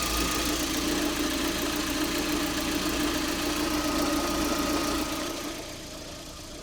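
Lada Priora's 1.6-litre 16-valve 21126 engine running warm at idle, with a thin steady whine over the engine sound. This is the extraneous noise being recorded, which the owner links to the water pump. The sound drops off sharply about five seconds in.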